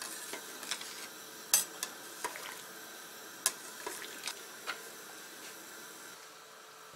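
Metal ladle stirring dumplings in a stainless steel pot of hot water, clinking against the pot about nine times in the first five seconds, over a steady low hiss.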